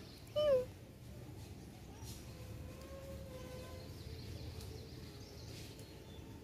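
A kitten's single short meow about half a second in, dipping slightly in pitch.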